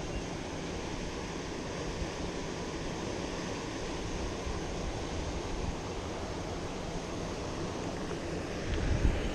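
Steady rush of canal water pouring through a check gate, with wind buffeting the microphone; the wind gusts grow stronger near the end.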